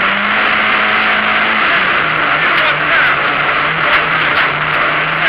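Opel Ascona A rally car at speed, heard from inside the cabin: its four-cylinder engine held at high revs under loud road and tyre noise, the engine note stepping down about a second and a half in, with a few short knocks later on.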